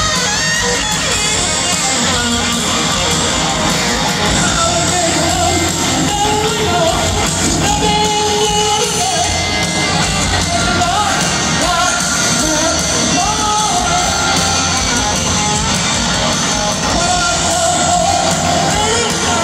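Hard rock band playing live in a stadium: electric guitars over bass and drums, with singing and yells, heard from within the crowd.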